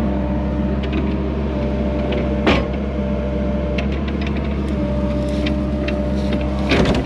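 A 304 mini excavator's diesel engine running steadily under load, with a constant whine over it. The bucket gives a sharp knock about two and a half seconds in and a clatter of knocks near the end as it scoops debris.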